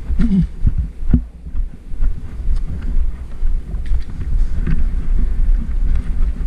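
Low rumbling wind noise and handling noise on the microphone, with a few sharp clicks, the clearest about a second in.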